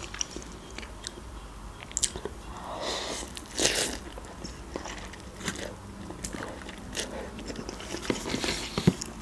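A person eating instant noodles: a slurp of noodles about three to four seconds in, with soft chewing and small scattered clicks around it.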